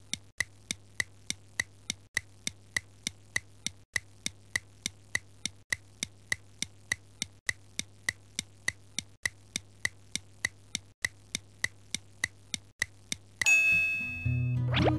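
Quiz countdown timer sound effect: clock-like ticks, about three a second, over a low hum that loops about every two seconds. About a second and a half before the end, the ticking stops for a ringing tone and a quick rising sweep, marking that time is up.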